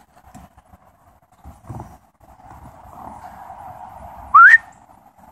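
A person whistles once to call a dog: a short, rising note about four seconds in, over a faint steady hiss.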